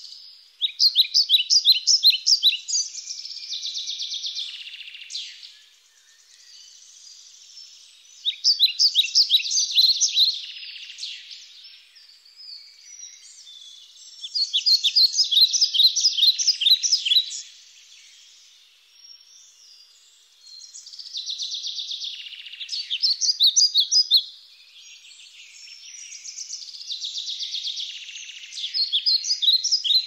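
A songbird singing the same fast, trilling phrase of rapid repeated high notes five times, each phrase two to three seconds long and about six seconds apart, with fainter twittering in between.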